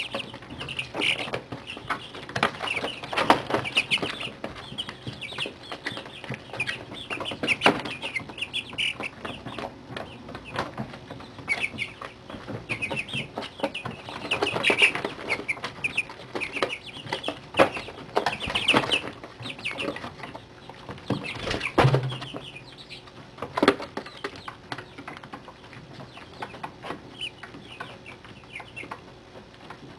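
Month-old chicks in a brooder peeping and cheeping, short high calls coming in clusters, busiest through the first two-thirds and thinning out near the end. A few sharp knocks stand out among the calls.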